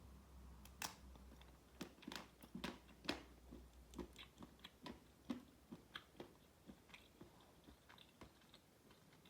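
A person biting into and chewing a square of 90% dark chocolate close to the microphone: a first snap about a second in, then a run of crisp crunches and wet mouth clicks that thins out towards the end.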